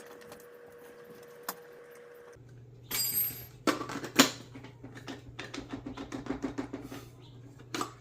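A quick run of light clicks and taps as the small plastic parts of a handheld scan tool's dongle holder are handled and fitted, starting about three seconds in after a quiet stretch with a faint steady tone.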